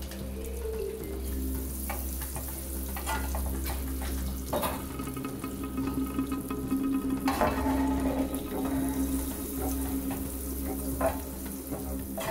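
Butter melting and sizzling in a hot nonstick frying pan, with a few sharp clicks and scrapes as a slotted spatula pushes it around the pan.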